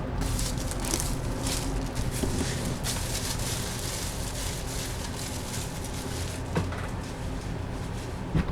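Cardboard collectible box being handled and opened: soft scraping and rustling of card, with a couple of sharp clicks near the end, over a low steady hum.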